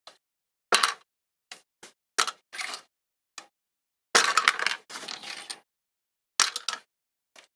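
Small parts and tools on a model car clicking and tapping as they are handled, in short separate clicks. About four seconds in comes a longer rattling scrape, and there is dead silence between the sounds.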